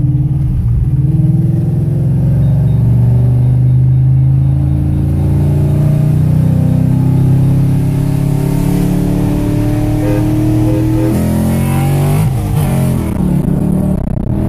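Ford Mustang GT's V8 pulling hard under heavy throttle, heard from inside the cabin. Its pitch climbs steadily for about eleven seconds, then drops at a gear change and starts climbing again.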